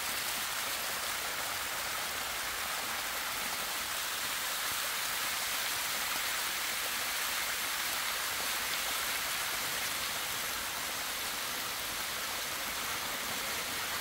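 Water of a small waterfall pouring and splashing down a rock face close by, a steady, even hiss.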